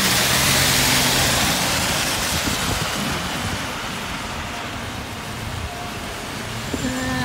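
Tyres hissing on a rain-soaked road, heard from inside a moving car, with a low engine hum. The hiss is loudest in the first two seconds, as another car passes close alongside, then eases.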